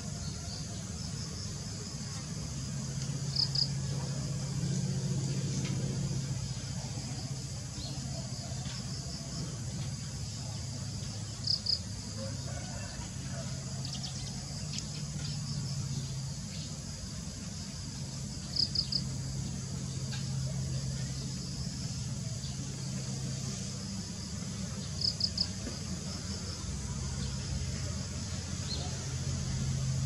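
Insects trilling in a steady high drone, with a short double chirp about every seven seconds and a low hum underneath.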